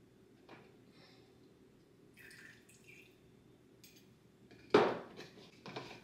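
Quiet handling of baking things, then one sharp clack and two lighter knocks near the end, a fork knocking against a cup of egg and vanilla extract.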